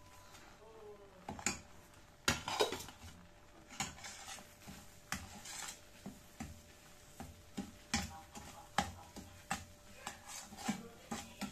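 Metal cooking utensils clinking and knocking against a pot in irregular strikes, about one or two a second, a few of them ringing briefly.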